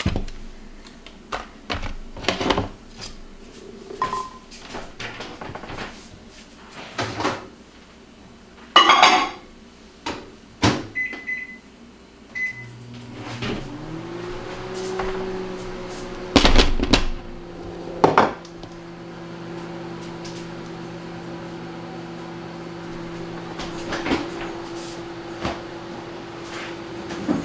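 Kitchen clatter of knocks and clicks, then a few short keypad beeps and a microwave oven starting up and running with a steady hum. Two loud knocks come while it runs.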